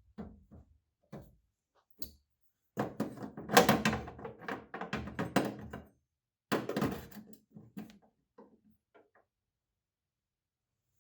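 A few knocks, then a cordless drill boring an 1/8-inch hole through a fiberglass hood in two bursts, the longer one first, followed by a few light clicks.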